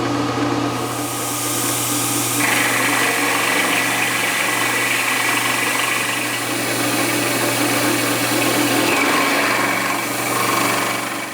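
Milling machine running with its end mill cutting a piece of metal stock: a steady motor hum under a hissing cut, with a higher whine joining about two seconds in.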